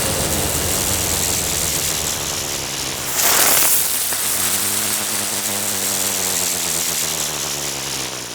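Outro music: sustained low synth tones, with a whoosh sweep about three seconds in, fading out at the end.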